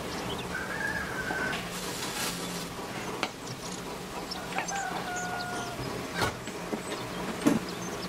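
Bird calls in the background, a few drawn-out whistled notes over a steady low hum, with three sharp clicks, the loudest near the end.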